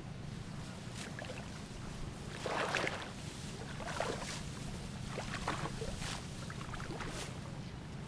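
Irregular swishing and rustling of ripe rice stalks being cut by hand with sickles and gathered, with water and mud sloshing in the flooded paddy. The loudest swish comes a little under three seconds in, over a steady low hum.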